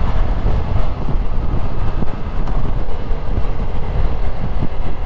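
Wind buffeting the microphone over the steady running of a Yamaha MT-07's parallel-twin engine, the motorcycle cruising at a constant speed.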